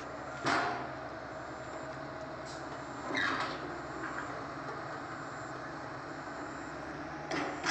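Steady hum of machinery at a river bridge construction site, broken by three short, sharp noises: about half a second in, about three seconds in, and near the end.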